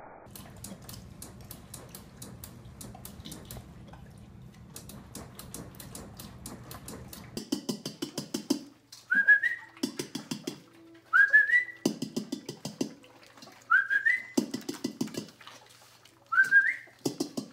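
A person whistling a short rising call four times, about every two and a half seconds, between loud bursts of tapping and clatter on a metal puppy feeding pan. Before that, faint rustling of dry leaves underfoot.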